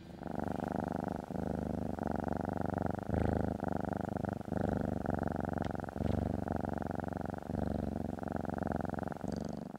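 A cat purring steadily, the purr broken by short gaps about once a second.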